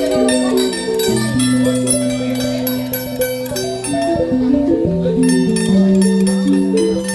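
Javanese gamelan playing a gending: quick stepping runs of metallophone and gong-chime notes over long held low tones.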